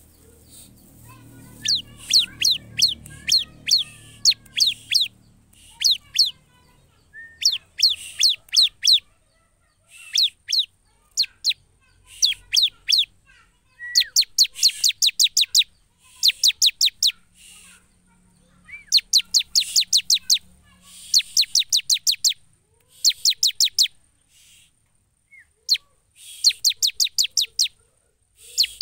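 Bar-winged prinia (ciblek) singing: repeated bursts of rapid, high, steeply falling notes, each burst about a second long, coming every one to three seconds.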